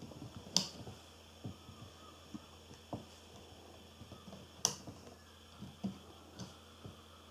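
Faint, scattered clicks and taps of fingers and rubber loom bands against the clear plastic pegs of a Rainbow Loom as bands are stretched onto it, with two sharper clicks about half a second in and again near two-thirds through, over a faint low hum.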